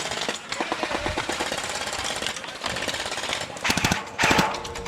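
Gel blasters firing on full auto: a rapid, steady clatter of shots, louder about three and a half to four and a half seconds in.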